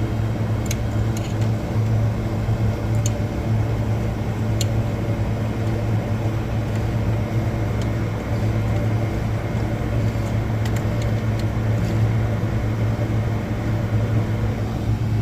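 Steady electric-motor hum of running refrigeration equipment, with a few faint clicks scattered through it.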